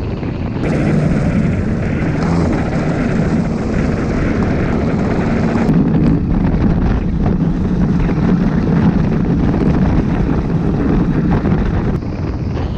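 Motorcycle engine running steadily as the bike rides along a dirt track, with wind buffeting the microphone. The engine note gets louder about half a second in.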